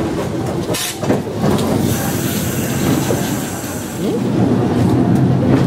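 Vintage wooden Sóller tram rolling on its rails, heard from on board: a steady rumble of the wheels, a sharp clack just under a second in, and a high metallic wheel squeal from about two to four seconds in.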